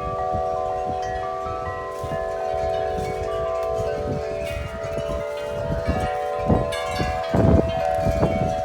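Metal tubular wind chimes ringing hard in strong, gusty wind. Several tones sound together and sustain, with a fresh cluster of strikes near the end, over a low rumble of wind.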